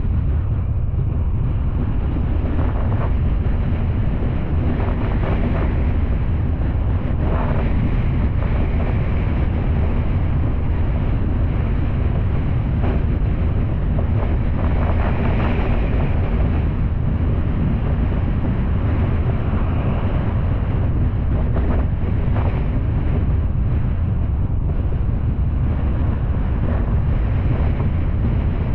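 Steady low rumble of a car on the move: road and wind noise, with wind buffeting the microphone.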